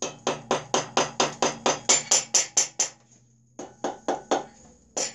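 Hammer blows on the base of a VW air-cooled engine cylinder to loosen it from the crankcase. A quick run of about a dozen sharp metallic taps, about four a second, is followed by a short pause and a few more taps.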